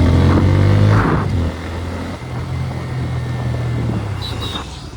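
Motorcycle engine running while riding. It is loud for about the first second, then drops sharply to a lower, steadier note as the throttle eases off, and gets quieter near the end.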